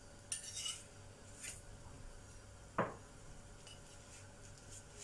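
A metal spoon scraping and rubbing on a chapati in a flat pan on the stove as the flatbread is turned and handled, with one sharp clink a little past halfway.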